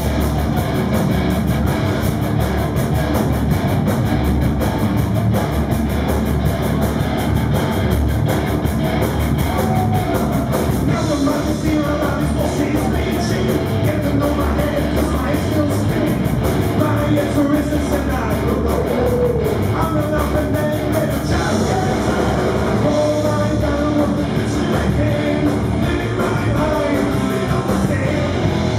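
Live rock band playing: electric guitars, bass and drums, with a male singer singing into a microphone.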